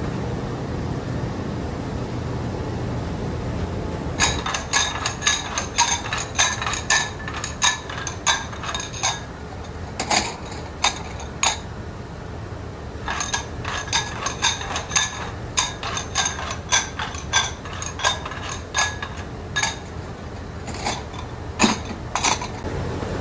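Ceramic bowls clinking against each other and against kiln setter racks as they are picked from a stack and set in place, a quick run of sharp ringing clinks starting about four seconds in, with two short pauses. A steady low machinery rumble underlies it.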